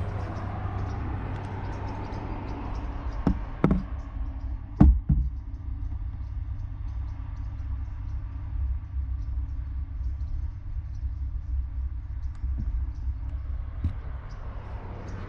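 A few sharp knocks, four within about two seconds near the start and one faint one later, over a steady low rumble.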